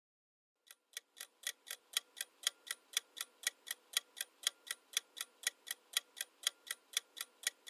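Ticking countdown-timer sound effect: even, clock-like ticks about four a second, starting less than a second in and running on steadily.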